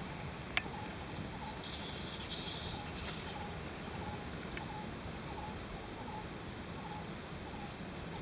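Steady outdoor hiss with short animal chirps repeating roughly every two-thirds of a second and a fainter high call every second and a half or so. One sharp click about half a second in.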